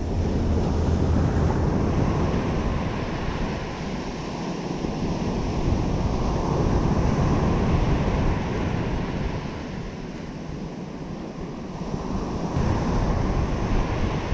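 Surf breaking on a sandy beach, a steady wash that swells and eases about three times, with wind buffeting the microphone.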